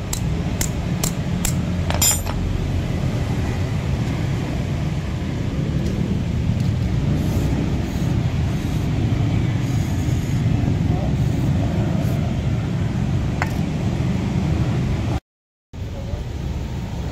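Steady rumble of passing road traffic, with a few sharp metallic clinks in the first two seconds as a rusty pulley block and its bearing are handled.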